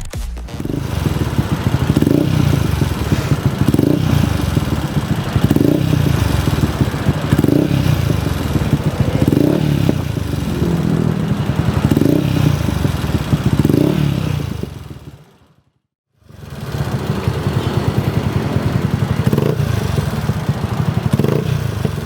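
Motorcycle engine running through a Shijiro Racing STD racing aftermarket exhaust, blipped in short revs about every two seconds. About two-thirds of the way through it fades to a moment of silence and then comes back running steadily with a couple of lighter blips.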